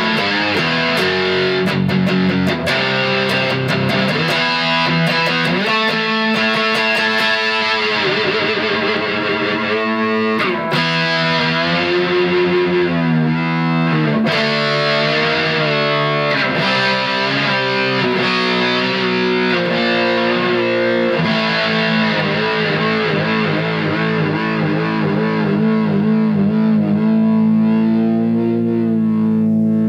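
Peavey Tracer electric guitar with a Floyd Rose tremolo, played through a high-gain distortion pedal. Notes and chords are shaken and bent with the tremolo bar, so the pitch wavers up and down, including a pull-back on the bar, and a chord is held near the end.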